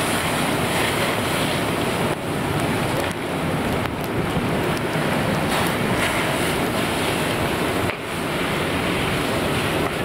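Fire hose spraying water onto a burning car, a steady rushing hiss.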